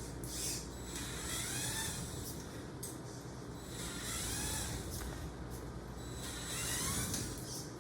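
Power drill motor driving a robotic wagon, whirring in repeated short bursts a second or two apart, its whine rising and then falling in pitch with each burst as the drill speeds up and slows down.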